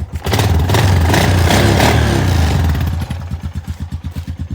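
1999 Honda Foreman 400 ATV's single-cylinder four-stroke engine just after starting: it runs louder for about two and a half seconds, then settles to a steady, evenly pulsing idle.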